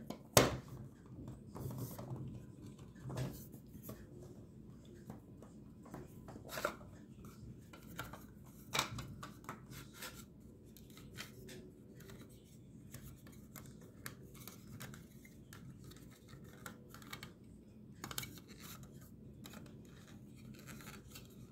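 Faint, scattered clicks and scraping of a clear acrylic baseball display cube being handled as the ball is shifted inside it, with a few sharper clicks now and then.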